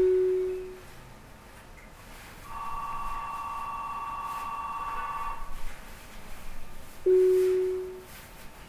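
Station departure signals heard from inside a standing commuter train: a low chime that rings once and fades, a steady electronic ringing bell for about three seconds, then the same low chime again, as the doors are about to close.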